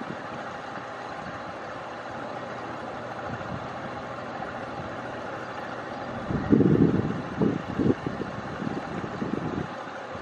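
Steady outdoor background hiss, with wind buffeting the microphone in irregular gusts from about six seconds in.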